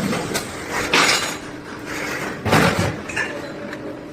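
Metal clanking and clinking, a handful of separate sharp knocks with the loudest cluster past the middle, typical of sheet-metal parts being handled in a workshop.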